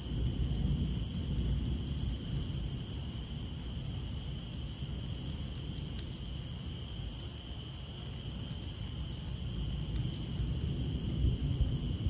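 Crickets chirring in a steady high drone at night, over a faint hiss of rain and a low, uneven rumble.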